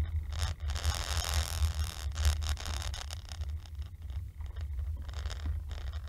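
Car driving, heard from inside the cabin through a windscreen-mounted dashcam: a steady low drone of engine and road, with irregular scratchy clicks and rattles throughout.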